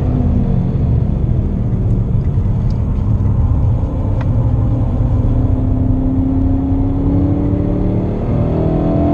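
Car engine and tyre rumble heard from inside the cabin while driving at speed on track. The engine note holds fairly steady through the middle, then climbs in pitch near the end as the car accelerates.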